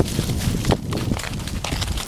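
Footsteps and rustling of gear close to the microphone as the wearer moves over the ground, with a few irregular knocks, one louder about two-thirds of a second in.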